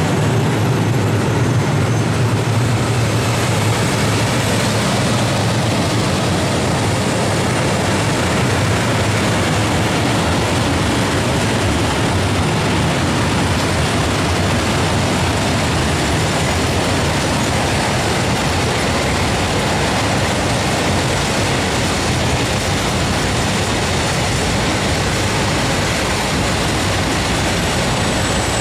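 Tank wagons of a long freight train rolling past close by: a steady, loud noise of wheels on rail.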